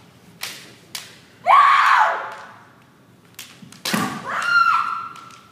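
Kendo fighters striking with bamboo shinai: sharp clacks, with a heavier thud about four seconds in. Two loud kiai shouts come through. The first, about a second and a half in, falls in pitch. The second follows the thud and is held on one high pitch.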